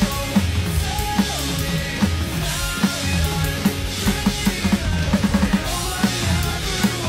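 Drum kit played along to a pop-punk song recording, on an electronic kit with mesh pads. A busy kick-and-snare beat runs through it, with quick clusters of kick-drum hits.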